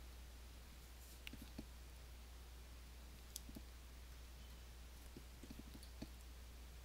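Faint scattered clicks from the buttons and controls of a Behringer X-Touch Compact MIDI controller being pressed, several in quick succession about five seconds in, over a low steady hum.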